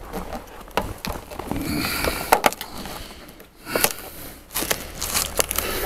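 Rubber window seal on a frozen Citroën C4 door being worked loose by hand: irregular scrapes, rustles and small clicks as the iced-up seal is pried and pulled from the frame.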